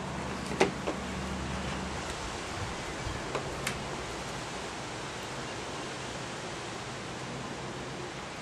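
Steady hiss of room noise with a few small clicks and taps from handling a plastic wiring-harness connector and a screwdriver, under a second in and again around three and a half seconds in. A low hum underneath stops about two seconds in.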